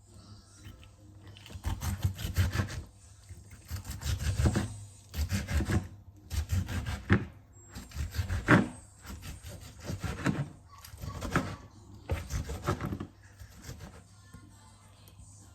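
Vegetables rubbed over a hand grater in repeated rasping strokes, about one a second, dying away near the end.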